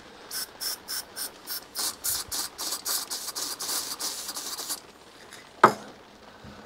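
Carburettor cleaning file rasping back and forth in a jet passage of an Amal 379 carburettor, about three strokes a second for four or five seconds, working loose a blockage. A single sharp knock near the end.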